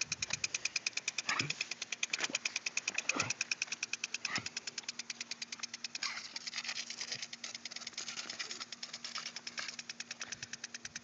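Rotating single-jet lawn sprinkler ticking in a rapid, even rhythm, roughly ten ticks a second. Several short falling sounds cut across it in the first few seconds.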